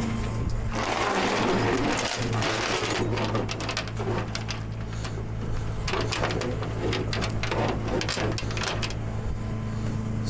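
Steel tie-down chain clinking and rattling in a quick, irregular clatter as it is worked around a pickup's axle, over the steady hum of a truck engine running.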